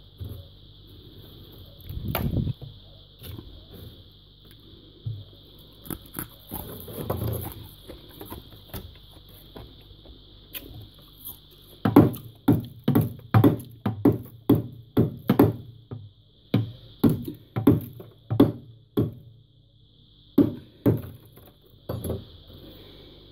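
Thick freezer frost being knocked and chipped with a metal utensil. A few scattered knocks come first, then a run of sharp knocks about two a second for some seven seconds past the middle, and a few more near the end.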